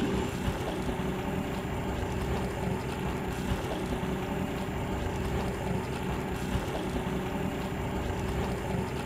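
A fishing boat's engine running steadily, a constant hum under an even rushing noise.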